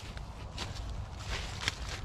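Footsteps crunching through deep leaf litter, about three steps.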